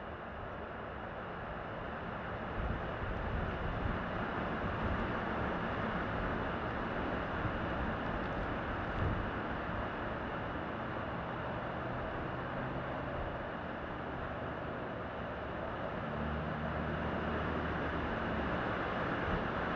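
Steady outdoor rushing noise with a low, shifting rumble, growing a little louder over the first few seconds; a low drone joins briefly near the end.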